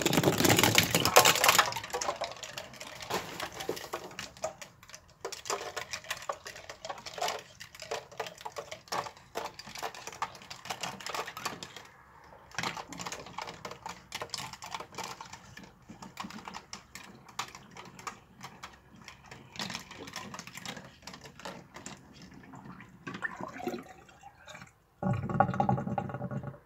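Hollow plastic toy capsules clattering and knocking against each other and the steel sink as they are carried by water swirling down the drain, a rapid irregular clicking that is loudest at the start. Near the end the drain gives a louder gurgle as the last of the water goes down.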